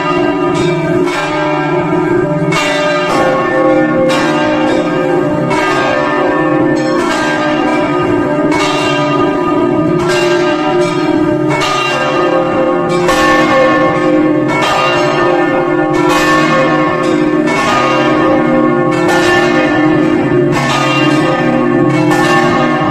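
Several church bells pealing, struck one after another about once or twice a second, each stroke ringing on so that the tones overlap in a continuous wash.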